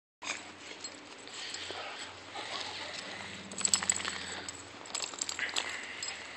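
Two pit bulls play-wrestling in snow, with dog noises and scuffling, and a cluster of sharp clicks about halfway through.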